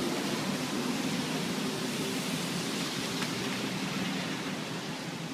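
Steady rushing noise of rain and car traffic on a wet city street.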